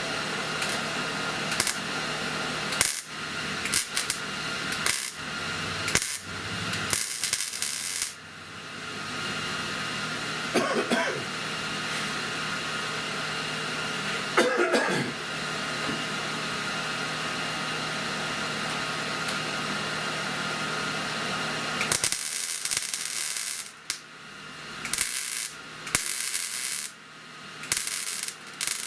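Welder laying short tack welds on car body sheet metal: crackling, sizzling bursts of a second or two, the longest about 7 seconds in and a cluster between about 22 and 27 seconds in, over a steady fan hum with scattered metallic clicks.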